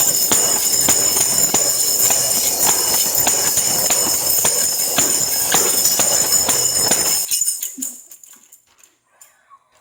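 Tambourine shaken and struck in a steady rhythm, its metal jingles ringing continuously, stopping abruptly about seven seconds in, followed by a few faint scattered jingles and clicks.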